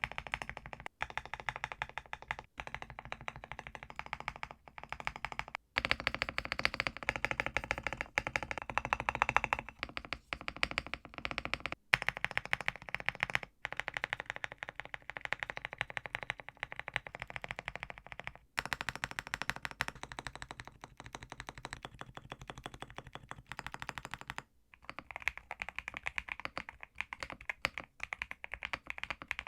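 Fast, continuous typing on a mechanical keyboard, a Zuoya GMK67 with Leobog Graywood V3 linear switches, with its keycap profiles compared clip after clip. The typing breaks off abruptly every few seconds where one clip is cut to the next.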